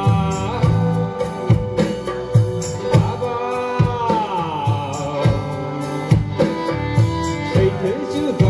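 Live band music: a singer with electric guitars, keyboard and drums over a steady beat. About midway, a held note slides downward.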